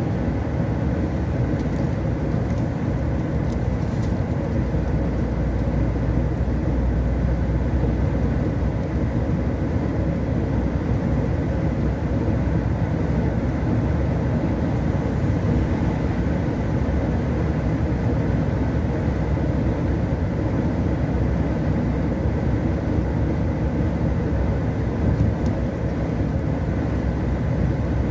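Steady road and engine noise inside a vehicle cruising on a wet highway, with low rumble and tyre hiss at an even level.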